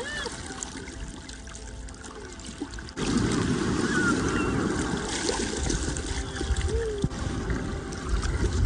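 Water trickling and lapping, a steady splashy wash that turns louder about three seconds in.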